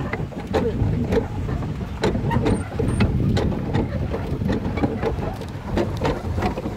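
A boat moving on the water: a steady low rumble with scattered knocks, and voices in the background.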